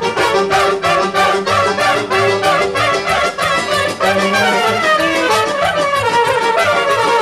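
Live Balkan brass band music: trumpets playing a fast, ornamented melody over a steady, fast drum beat, with an accordion playing along.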